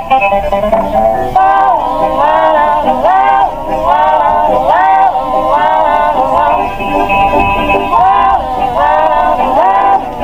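Synthesized emergency-alert alarm tone. A buzzy pitched note holds steady for about a second and a half, then swoops up and down in pitch roughly once every 0.8 seconds, like a wailing siren.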